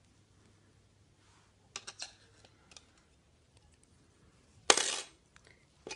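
Light clicks of double-pointed knitting needles knocking together as the knitting is handled, in a cluster about two seconds in, with a few fainter ticks after. Near the end comes a short, louder rustling hiss.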